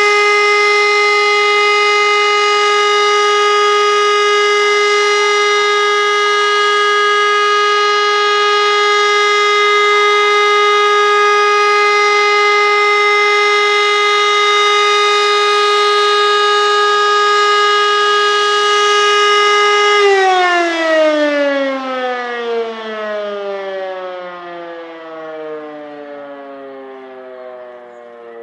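Civil defence siren sounding a steady, unbroken tone, the German all-clear signal. About 20 seconds in it stops and winds down, its pitch sliding lower and fading as it runs out.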